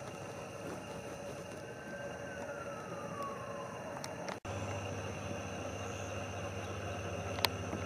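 Outdoor background noise with a steady hum, in which a faint tone slides down in pitch about two to three seconds in. The sound breaks off abruptly about four and a half seconds in and resumes with a steadier low hum, and a single sharp click comes near the end.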